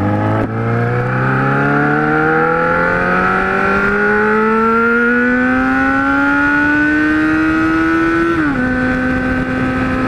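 Kawasaki Z1000's inline-four engine with a 4-into-1 exhaust, pulling steadily in one gear under throttle, its note rising slowly for about eight seconds. Near the end the pitch drops a step, as at a shift up, and then holds steady at cruise.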